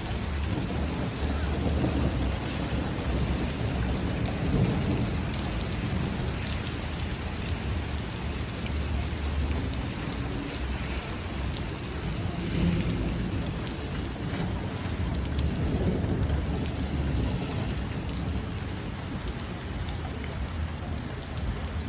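Pea-sized hail falling, many small hailstones striking in a dense stream of ticks over a steady hiss, with a low rumble underneath that swells and fades several times.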